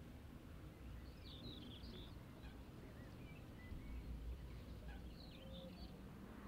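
Quiet outdoor ambience: a faint low wind rumble with small birds chirping in two short bursts, about a second in and again about five seconds in.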